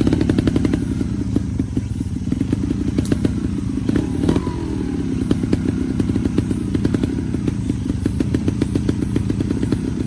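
Trials motorcycle's single-cylinder engine running at low revs with rapid even firing pulses, its pitch rising and dipping slightly as the throttle is feathered, while the bike is held at the foot of a steep dirt bank before a climb.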